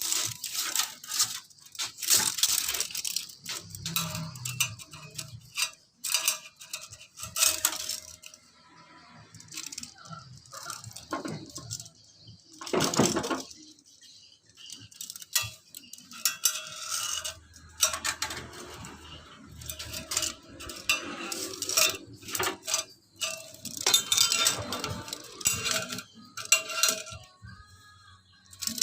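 Metal objects clinking and rattling irregularly, with many separate sharp knocks.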